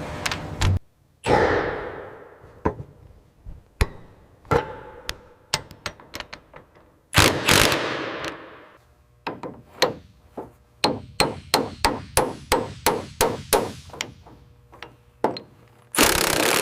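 Hammer blows ringing out one at a time, then a quick steady run of about three strikes a second near the end. Two louder hissing bursts, each fading out over a second or so, come about a second in and about seven seconds in.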